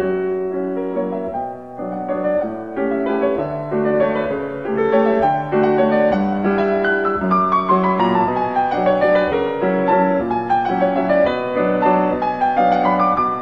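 Background piano music: sustained chords with a melody, and a falling run of notes about halfway through.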